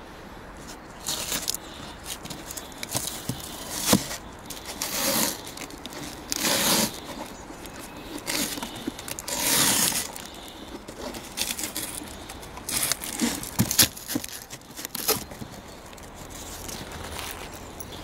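Plastic packing tape being peeled and ripped off a cardboard parcel box, in a series of irregular short ripping and crinkling bursts, with cardboard scraping as the box is handled and opened.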